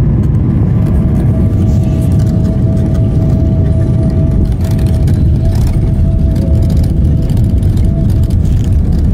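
Loud, steady low rumble inside the cabin of a Boeing 777-300ER coming in to land, from its engines and the airflow, with a thin steady whine over it from about a second in.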